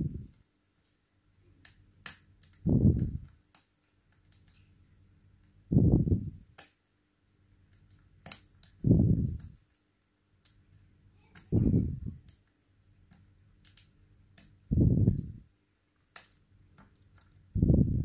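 Light, scattered metallic clicks of a thin pick working the side pins of an ASSA Ruko Combi Plus high-security cylinder under light tension. Low puffs about every three seconds are louder than the clicks.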